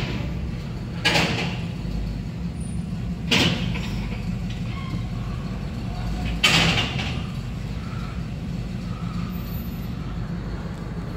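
1955 Cadillac's V8 engine running with a steady low rumble through its rusty, leaky, rattling exhaust, heard from inside the cabin. Three short hissing puffs come about a second, three seconds and six and a half seconds in.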